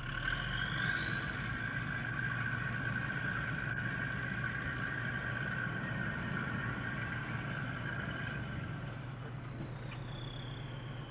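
Fishing-boat machinery running over a steady engine hum. A high whine climbs in pitch over the first couple of seconds, holds, and winds back down near the end, as the machine speeds up and then slows.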